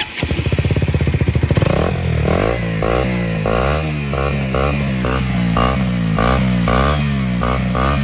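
KTM RC 125's single-cylinder engine, breathing through a fitted Husqvarna 250 aftermarket silencer, running at idle. From about two seconds in the throttle is blipped over and over, about two quick revs a second.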